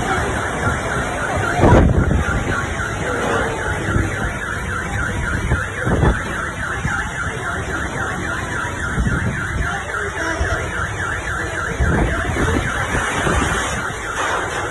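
Car alarm sounding continuously in a fast repeating chirp, over heavy rain and strong wind gusting against the microphone.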